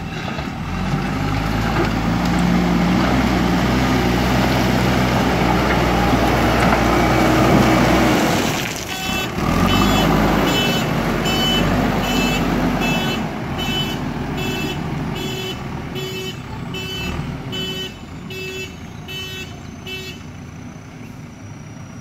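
JCB backhoe loader's diesel engine running loudly as the machine drives forward. From about nine seconds in, its reversing alarm beeps at an even pace while the machine backs up, over a quieter engine.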